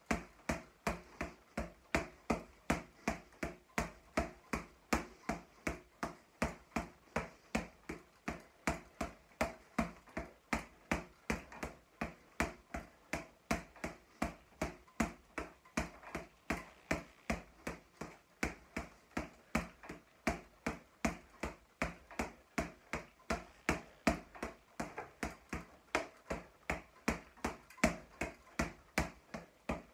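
Boxing gloves repeatedly striking a floor-to-ceiling double-end ball, a steady run of sharp slaps about two to three a second, the ball's elastic cords tightened for a faster rebound.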